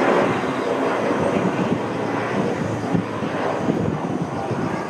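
Embraer 170 jet airliner passing low overhead on landing approach, gear down: a steady rush of twin turbofan engine noise, loudest right at the start.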